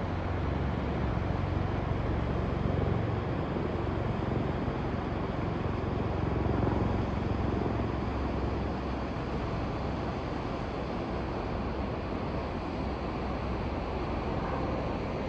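Steady rushing of a wide, fast river's white-water rapids and whirlpool, a dense even noise heaviest in the low end.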